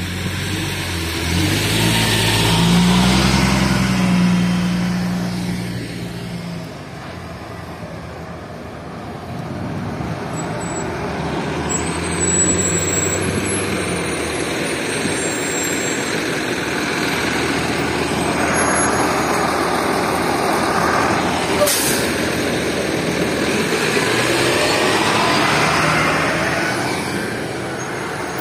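Rear-engine diesel school buses rolling slowly past at close range. An engine's hum rises in pitch over the first few seconds, then gives way to steady engine and tyre noise that swells as each bus passes. One sharp click comes late on.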